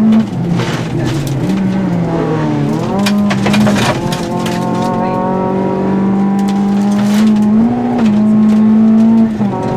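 Rally car engine heard from inside the cabin at stage speed. Its pitch dips and climbs back between about one and three seconds in, then holds steady at high revs, and drops suddenly near the end.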